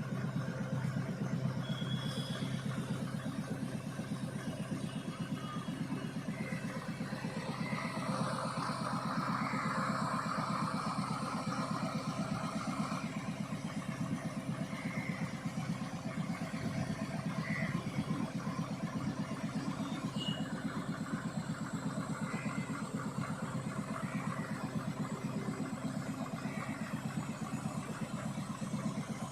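Mobile crane's diesel engine running steadily, with a higher-pitched sound added for about five seconds partway through.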